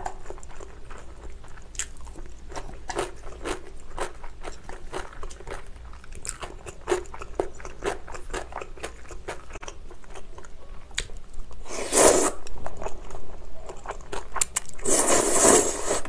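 Close-up eating sounds of chewy spicy cold noodles: steady wet chewing with many small clicks, and two louder slurps, a short one about twelve seconds in and a longer one near the end.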